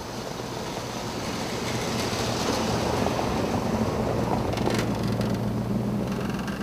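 A 1960 Rolls-Royce Silver Cloud drives past on cobblestones, its engine giving a steady low hum over the rumble of tyres on cobbles. The sound grows louder as the car comes close, peaks about halfway through, then eases off as it pulls away.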